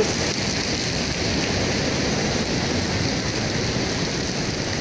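Steady rushing of a mountain waterfall close by, the even noise of falling water.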